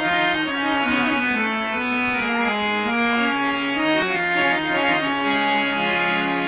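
Harmonium playing an instrumental melody that steps from note to note over a steady held drone note.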